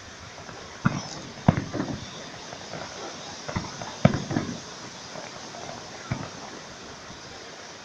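Aerial fireworks going off: a series of sharp bangs at uneven intervals, the loudest about a second, a second and a half and four seconds in, each with a short echo behind it.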